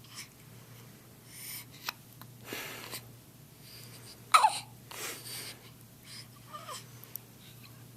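Swaddled baby hiccuping: a few short, sudden hiccups, the loudest about four seconds in with a quick drop in pitch, with breaths and small vocal sounds between them.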